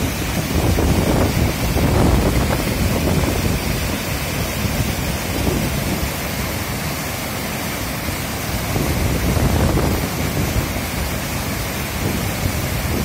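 Small waterfall pouring between boulders into a pool: a steady, loud rush of falling water, swelling deeper a couple of times.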